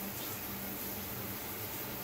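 Shower water running in a steady, even spray, with no change in level.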